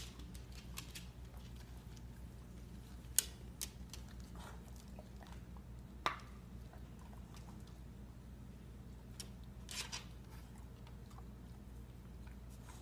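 Quiet room with a steady low hum, broken by a handful of short clicks and taps as beagles move about a plastic laundry basket on a wood floor. The sharpest tap comes about three seconds in, another about six seconds in, and a small cluster near ten seconds.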